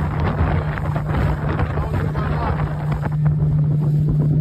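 Honda outboard engine running steadily at speed, a constant low drone, with wind buffeting the microphone and water rushing along the hull of the inflatable boat.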